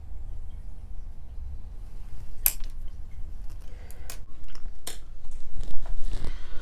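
An eyeshadow palette and makeup tools being handled on a table: a series of sharp clicks and clinks, starting about two and a half seconds in, with several close together.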